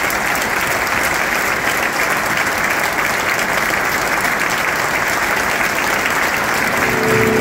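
Large stadium crowd applauding steadily. Music starts near the end.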